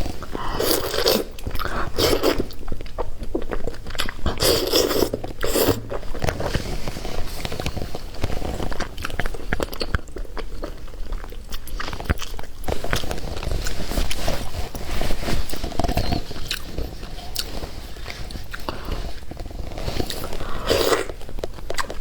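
Close-miked chewing of a very fatty, oily piece of steamed fish, with wet, irregular mouth clicks and bites throughout.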